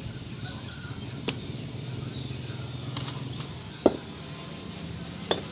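A few sharp clicks and knocks from engine parts being handled, the loudest about four seconds in, over a low steady hum.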